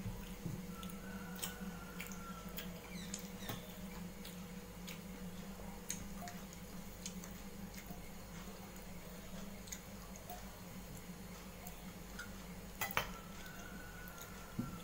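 Fingers mixing rice and curry on a stainless steel plate: scattered light clicks and taps against the metal, with a sharper double clack about 13 seconds in. A steady low hum runs underneath.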